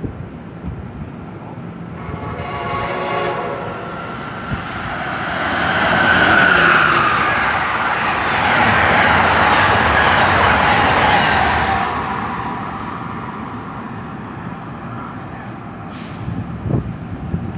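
A train horn sounds once, for about a second and a half, then an Amtrak passenger train passes close at speed. The rushing of its wheels and cars builds to a loud peak for several seconds and then fades away.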